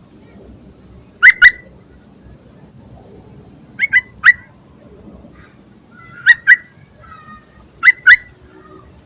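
Yellow-vented bulbul (trucuk) calling: loud, sharp notes in quick pairs, repeated four times about every two seconds, with a softer chattering phrase between the last two. This is a female's call, used to lure males.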